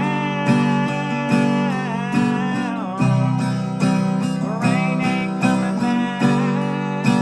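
Instrumental country music: an acoustic guitar strummed in a steady rhythm, about two strums a second, with a lead melody whose notes bend and slide in pitch.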